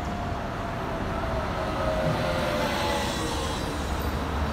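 Road traffic: cars passing on a multi-lane city street, a steady tyre and engine noise with a faint tone that slowly falls in pitch as a vehicle goes by.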